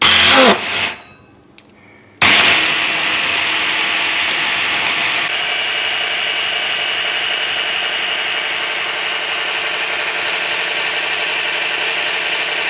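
Electric hand blender on a chopper bowl puréeing pineapple with liquid. It gives a short pulse that winds down, then about two seconds in it starts again and runs steadily.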